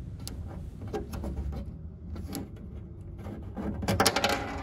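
A few light plastic clicks as the snap-in hole plug in the top of a pinball back box is squeezed by its tabs, then near the end a short, louder burst of scraping and clicking as the plug is pushed out through its hole.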